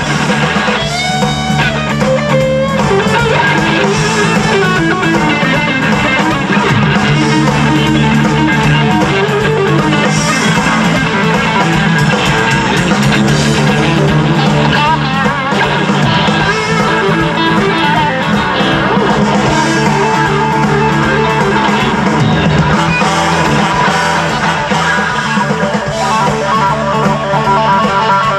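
Live blues-rock band playing an instrumental passage, electric guitar to the fore, with trombone and saxophone at the start.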